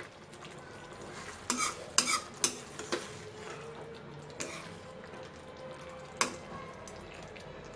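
A metal spoon stirring butter into chicken rogan josh in a cooking pot, the curry sizzling steadily. The spoon clinks against the pot several times, a cluster in the first half and a last sharper clink near the end.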